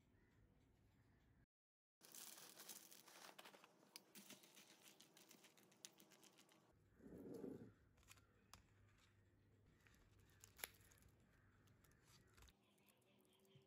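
Faint tabletop handling of food and packaging. About two seconds in, a crackly rustle lasts a second and a half. Later come a soft low scrape, then a few light clicks and crinkles.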